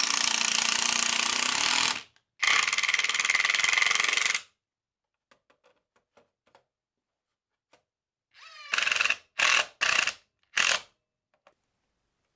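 Cordless drill driving screws into a plywood block: two runs of about two seconds each, a few light clicks, then a short rising spin-up and three quick bursts near the end.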